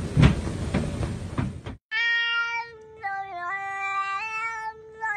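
A domestic cat's long, drawn-out meow that holds a few steady notes stepping down and back up, with a brief dip in the middle. It follows a second and a half of noisy hiss with a few thumps.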